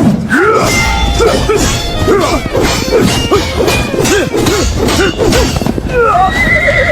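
Cartoon fight sound effects: a quick string of punches, whacks and crashes over background music.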